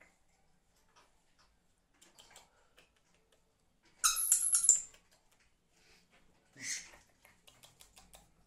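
Dusky lory giving a quick run of shrill, squeaky calls about four seconds in, and a second, shorter burst a couple of seconds later. Soft clicks and rustles in between.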